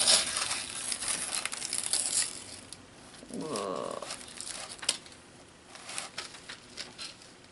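Wax paper crinkling and tearing as it is peeled off tacky acrylic paint on journal pages, the paint sticking to the paper and pulling away. A short wordless hum is heard about three and a half seconds in.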